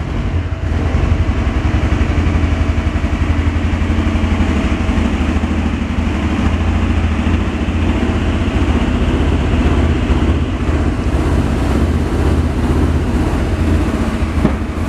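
Steady low rumble of a 2005 Suzuki GSX-R750 rear wheel rim spinning fast on a spin-test stand's axle, with a fine rapid pulsing and no change in speed.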